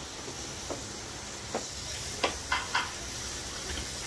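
Magnetless TFX HO scale slot cars running laps on the track, a steady hissing whir, with a few short clicks about two to three seconds in.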